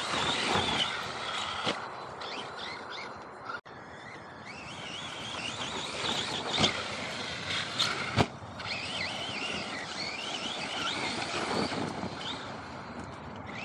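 Small birds chirping over steady outdoor background noise, with a few sharp knocks: one near 2 seconds in and two close together around 6.5 and 8 seconds in.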